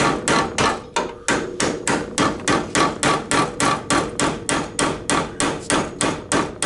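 Hammer blows on a seized steel bolt in a snowmobile's shock mount: a steady run of sharp metal-on-metal strikes with a short ring, about three to four a second, with a brief gap about a second in. The bolt barely moves under the blows.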